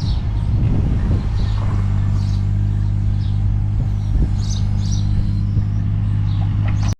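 Takeuchi TB216 mini excavator's engine running steadily, with birds chirping. The sound cuts off suddenly near the end.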